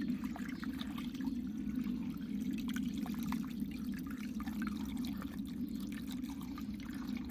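A knife scoring the skin and flesh of a raw, wet whole tilapia, making small irregular wet ticks and cuts over a steady low hum.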